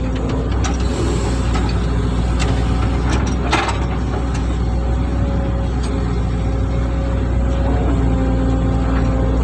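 Hitachi hydraulic excavator's diesel engine running steadily at working revs, with a single sharp knock about three and a half seconds in.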